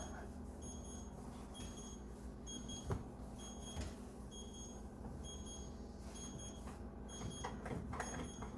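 Electronic timer alarm beeping, a short high beep roughly once a second, with a few faint knocks and rubs of cleaning underneath.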